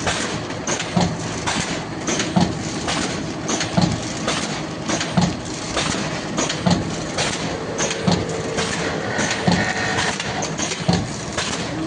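Collar-type cup filler pneumatic packing machine running, a steady mechanical clatter with a stronger knock repeating about every second and a half as it cycles.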